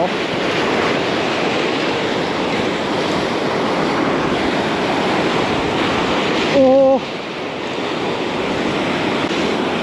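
Heavy surf breaking on a boulder shore in a rough sea, a loud, even wash of waves with wind buffeting the microphone. About two-thirds of the way through, a short held voice sound cuts in briefly.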